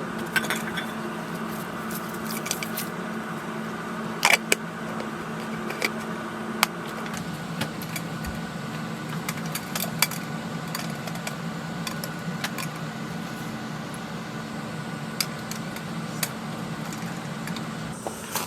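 A steady machine hum, like a small motor or fan, with scattered light clicks and knocks of things being handled over it.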